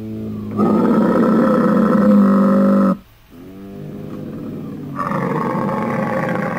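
Camel calling: two long, low-pitched calls with a short break between them, each about three seconds long. It is a strange sound.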